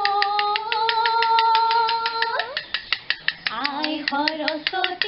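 Women singing a bihu naam: one long held note, then after a short break a lower, wavering phrase. Under it, a toka (split-bamboo clapper) is struck in a fast, even rhythm of sharp clicks.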